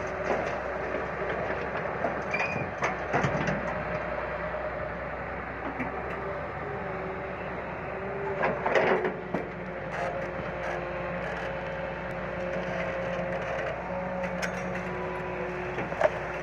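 Hyundai crawler excavator working: its diesel engine runs steadily with a hydraulic whine that shifts in pitch as the boom and bucket move. Dirt and rubble clatter down twice, about three seconds in and again around nine seconds, and a sharp metallic clank comes near the end.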